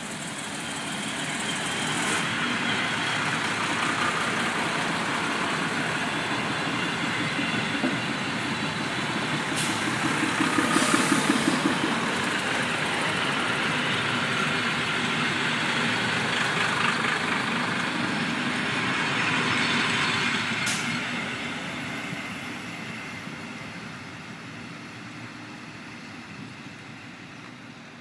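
Fiat ALN 668 diesel railcars pulling away, their old-style diesel engines rumbling as the train gathers speed and passes close by. The sound is loudest about a third of the way in and fades over the last several seconds as the train moves off. A few sharp clicks come along the way.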